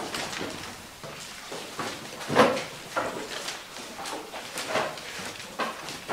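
Scattered knocks, scrapes and paper rustles from a classroom of wooden desks during an exam, with one louder sharp sound about two and a half seconds in.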